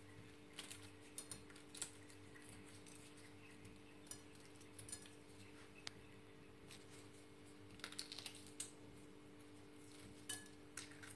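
Hard-boiled eggshell being cracked and peeled off by gloved hands: faint crackles and clicks in short clusters, a few times, over a steady low hum.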